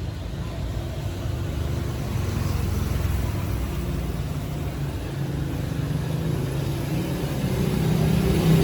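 A motor vehicle engine running with a low steady rumble.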